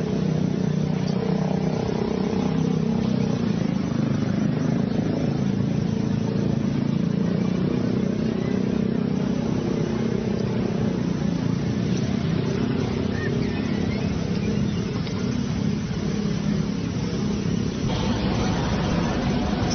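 Steady low rumbling drone, like a running motor, that changes to a brighter hiss near the end.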